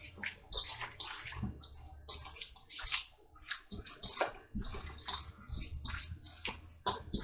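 Raw chicken wings tossed and rubbed by hand in a liquid marinade in a stainless steel bowl, making irregular wet squelching and sloshing, several strokes a second.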